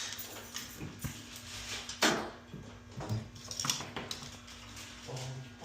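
Scattered small clicks and taps of hands working on a fire alarm control panel's circuit board while its DIP switches are set, over a steady low hum. The loudest click comes about two seconds in, and a short whine sounds near the end.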